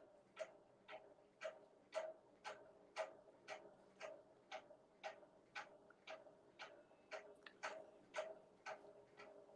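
Clock ticking faintly and steadily, about two ticks a second.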